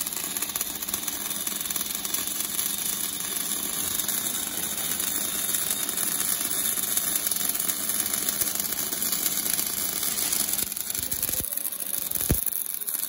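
Welding arc of an automatic oil-port welding machine, sizzling steadily as it throws sparks and spatter. A short low thump sounds near the end.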